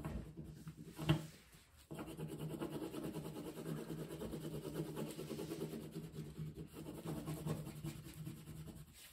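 Wax crayon with its paper peeled off, rubbed on its side back and forth across paper in fast, even strokes to colour in a large area. The scratchy rubbing starts about two seconds in, after a single knock.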